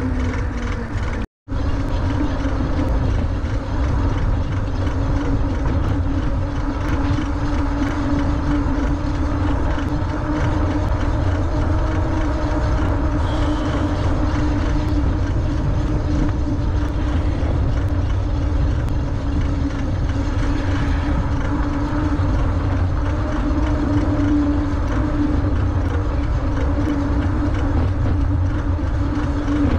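Wind rushing over the microphone of a moving electric bike, a heavy low rumble, with a steady hum from the e-bike's hub motor and tyre noise on pavement. The sound cuts out for a moment about a second in.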